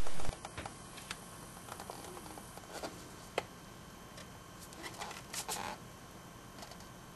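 Faint plastic clicks and light taps as the iPad 1 screen assembly's retaining clips are pressed and snapped into the back case, with one sharper click about three and a half seconds in and a small cluster of clicks around five seconds.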